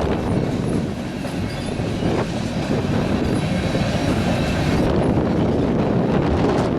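Freight train rolling past, a steady loud rumble of wheels on the rails with some clatter.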